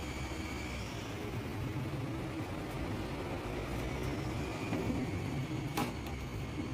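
Steady drone of running machinery, a low hum under a faint high whine, with a single sharp click about six seconds in.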